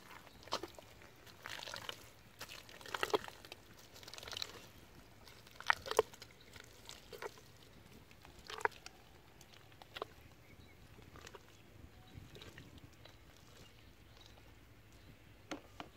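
Bare feet squelching and sucking in soft wet mud, one step about every second, the steps growing fainter and fewer in the second half.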